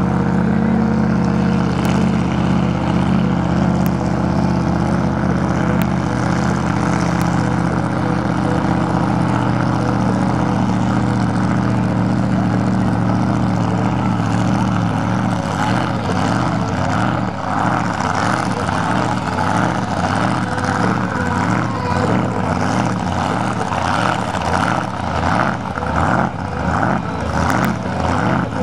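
Jet sprint boat engine running loud and steady. From about halfway the sound wavers and pulses over and over.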